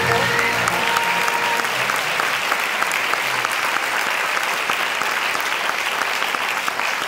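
Cinema audience applauding steadily, with the last of the stage music dying away in the first second or so.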